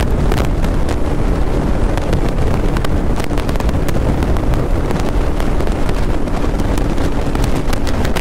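Heavy wind rush on the microphone of a Bajaj Pulsar NS200, a single-cylinder motorcycle, riding at highway speed, with the engine running steadily underneath. The sound cuts off suddenly at the very end.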